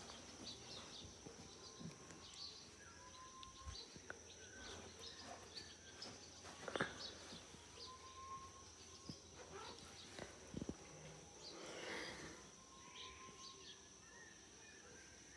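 Quiet early-morning outdoor ambience: faint, scattered bird calls and short chirps come and go over a steady, thin high-pitched tone.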